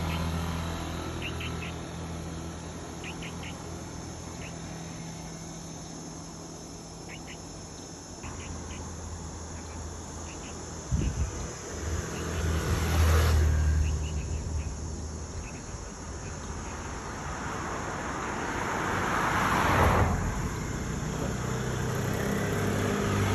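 Outdoor ambience with a steady low engine hum, a few short high chirps, and two vehicles passing by, loudest about halfway through and again near the end, with a sharp knock just before the first one.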